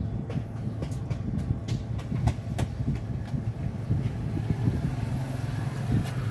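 Two cats eating from a plastic bag: irregular small clicks and crackles of chewing and bag rustle, thinning out after about three seconds. A steady low hum runs underneath.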